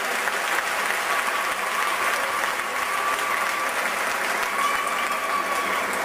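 Audience in the stands applauding steadily at the end of a group baton-twirling routine.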